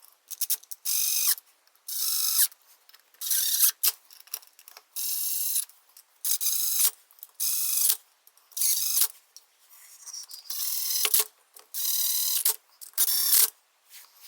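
Ratchet wrench clicking in about ten short spells, each a fraction of a second long with short pauses between, as bolts or screws are run in on a small motorcycle engine.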